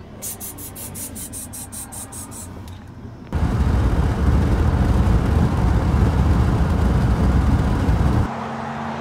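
Car on the road: a quieter stretch with a rapid, even high ticking, then from about three seconds in a loud low rumble of road and engine noise that cuts off abruptly near the end.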